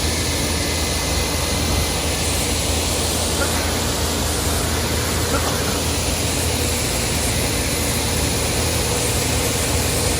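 Farm tractor engine running steadily at road speed under a loud, even rush of wind and road noise. The sound starts and stops abruptly.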